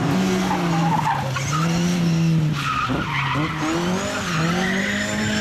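Classic rally car engine at high revs, its pitch rising and falling repeatedly as the throttle is worked, with tyres skidding on tarmac.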